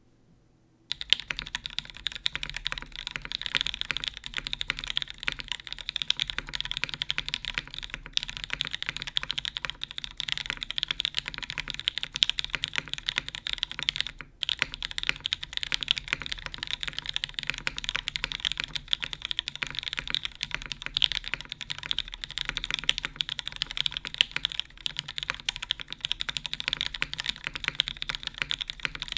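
Steady fast typing on a custom mechanical keyboard with linear Cherry Vintage Black switches in an aluminum plate, no case foam, and GMK keycaps: a dense run of clacking keystrokes that starts about a second in, with a brief pause around halfway.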